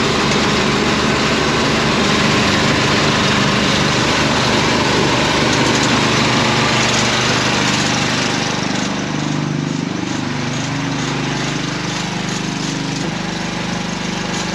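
Air compressor running steadily under load, driving compressed air through a dryer-vent cleaning line, with a loud rush of air. About eight seconds in the air rush eases while the motor keeps running, its pitch wavering.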